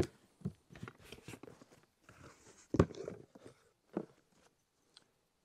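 Cardboard shipping box being opened by hand: flaps folded back and the contents handled, giving a few sharp knocks with soft rustling between them, the loudest knock about three seconds in.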